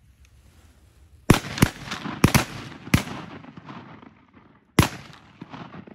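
A rapid volley of six shotgun shots, two of them almost on top of each other, each with a rolling echo. It is waterfowl hunters firing at ducks over decoys.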